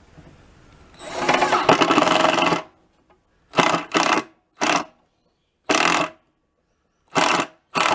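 Power drill driving a screw: one run of about a second and a half, then six short trigger blips snugging the screw up lightly, not fully tightened.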